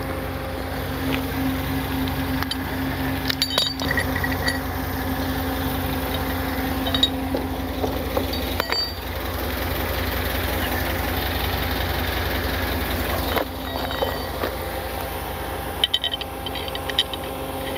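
A vehicle engine idling steadily, with light metallic clinks now and then and a quick run of clinks near the end.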